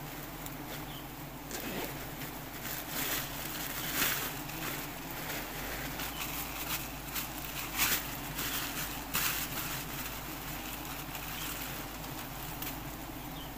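Steady buzzing hum of a wild giant honeybee colony on its open hanging comb, with sharp crinkling rustles of a plastic bag being handled, mostly between about two and nine seconds in.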